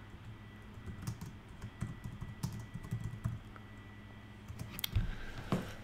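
Typing on a computer keyboard: a quick run of soft keystrokes lasting a couple of seconds, then a few louder clicks near the end.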